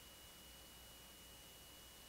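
Near silence: a faint steady hiss and low hum, with a thin steady high tone throughout.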